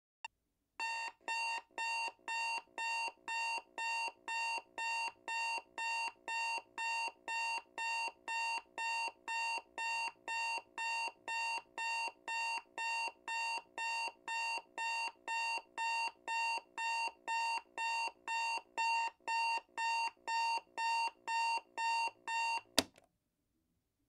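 Timer alarm going off at zero: an electronic beep repeating evenly about twice a second, the same pitch throughout, then cutting off suddenly with a click near the end.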